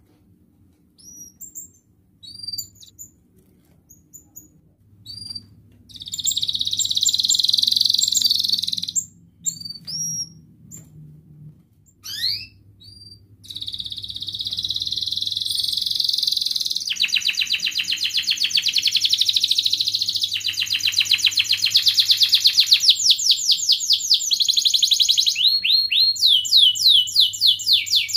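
Domestic canary singing. First come scattered short high chirps, then a sustained high trill about six seconds in, then more chirps. From about halfway it sings a long, continuous, louder run of trills and fast repeated notes.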